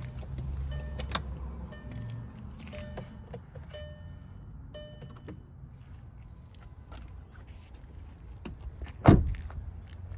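Scattered light clicks and short metallic jingles, with a low rumble early on, then a single loud thump about nine seconds in.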